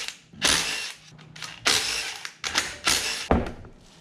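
Engine parts being handled during a teardown: about four clunks and scrapes in a row, each starting sharply and fading over about half a second, with the sharpest near the end.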